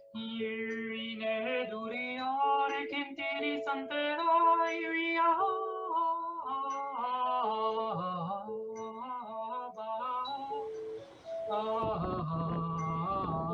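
A woman's wordless intuitive singing, her voice sliding between held notes and short melodic turns over sustained lower tones. Near the end a rushing noise joins beneath the voice.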